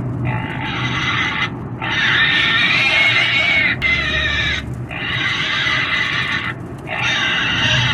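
A pig squealing, about four long, high-pitched screams in a row, each a second or two long, with short breaks for breath between them.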